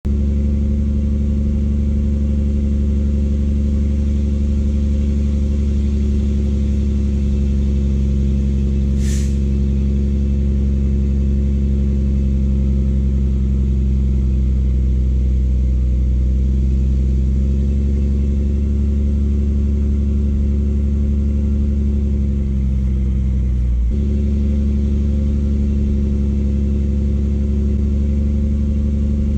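Mack tri-axle dump truck's diesel engine running at a steady pitch as it drives in and then raises its bed to dump asphalt millings. The engine note changes abruptly about 24 seconds in, and there is a brief hiss about nine seconds in.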